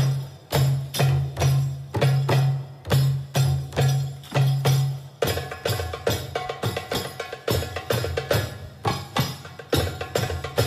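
Belly dance music. Heavy drum strokes come about twice a second, then from about five seconds in a faster percussion pattern takes over, joined by a melody.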